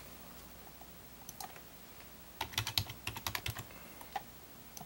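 Typing on a computer keyboard: a couple of scattered keystrokes, then a quick run of about ten keystrokes starting about two and a half seconds in, and a few single keys near the end.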